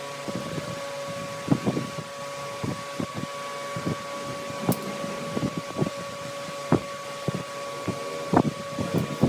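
Wood lathe running with a steady motor whine, while a turning tool cuts the spinning wood in irregular short knocks and scrapes.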